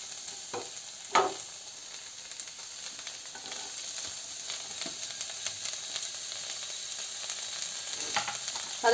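Diced vegetables sizzling in butter in a non-stick wok as they are stir-fried on high flame, with a wooden spatula scraping and tapping the pan now and then. A sharper knock comes about a second in.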